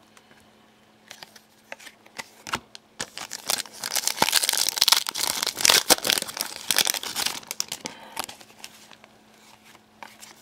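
Panini Contenders hockey card pack wrapper crinkling and tearing as the pack is opened by hand, a run of crackling that starts about a second in, is densest in the middle and thins out near the end.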